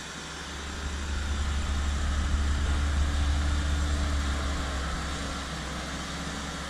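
Large diesel engine of farm machinery running steadily under load during maize chopping, a deep hum with a broad rushing noise over it. It swells a little over the first couple of seconds, then eases slightly.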